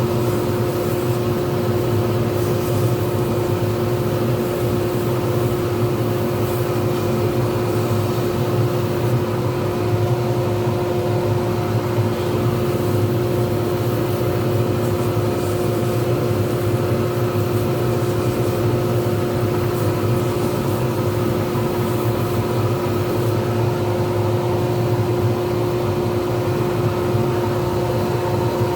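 Small pen-turning lathe running steadily at constant speed, a motor hum with a clear unchanging whine.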